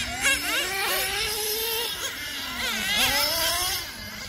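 High-pitched nitro engines of two RC racing cars revving as they lap, the pitch rising and falling with the throttle, with a drop about three seconds in before it climbs again.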